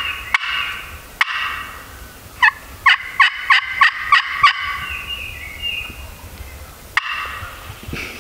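Wild turkey gobblers gobbling three times: near the start, about a second in, and again near the end. In between comes a run of about eight quick, clear yelping notes.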